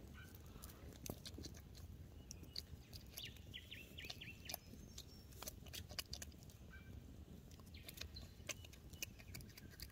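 Faint, scattered sharp clicks and pops from a small campfire and a stick being worked among its coals. A bird chirps briefly about three to four seconds in.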